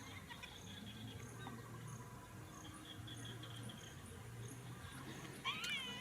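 Insects chirping steadily in the background, about two high chirps a second. Near the end, a young monkey gives a shrill, wavering cry.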